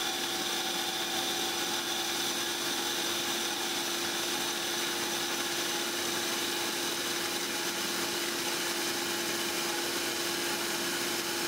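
Metal-cutting band saw with an Amada Chip Breaker bimetal (M42 high-speed-steel edge) blade cutting through 8-inch carbon steel round bar: a steady hum with a constant low tone and higher whining tones over a hiss.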